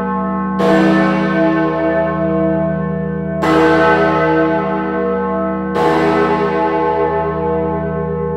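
Great George, a large swinging tower bell, struck by its clapper three times at about two-and-a-half-second intervals. Each stroke hums on under the next, a slow single-bell toll.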